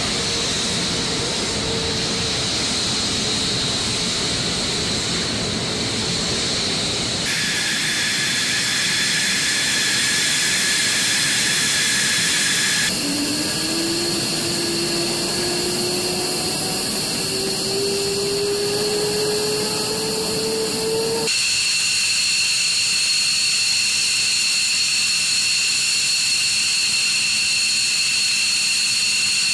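Fighter jet engines running on the ground: a loud, steady hiss with a high-pitched turbine whine, in several takes that cut abruptly about 7, 13 and 21 seconds in. In the middle take a lower whine climbs slowly as an engine spools up.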